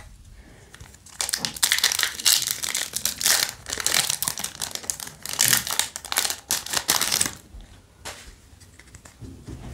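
Foil booster-pack wrapper crinkling as it is torn open and the cards are pulled out: a dense crackle that starts about a second in and stops abruptly about two seconds before the end.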